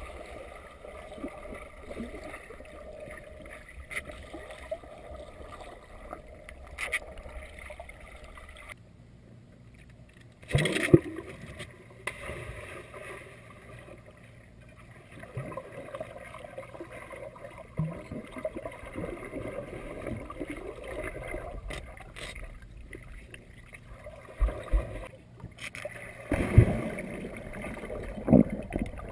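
Muffled underwater sound of a swimming pool, heard through a submerged camera: a steady hiss and gurgle of moving water. Louder rushes of splashing and bubbling come about a third of the way in and again twice near the end as a boxer dog dives in and swims down.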